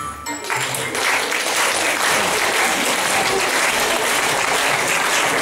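Audience applauding, starting about half a second in and keeping up a steady level.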